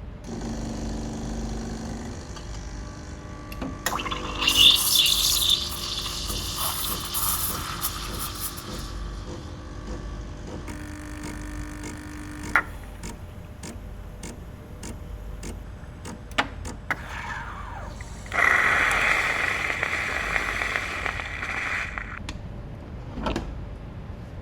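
Coffee being made by hand: a couple of spells of liquid pouring and rushing, with a run of sharp clicks and small clatters of kitchenware between them.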